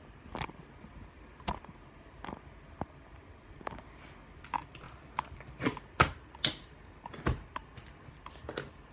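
Slime being poked and squished inside its plastic container: irregular sharp clicks and pops, the loudest about six and seven seconds in.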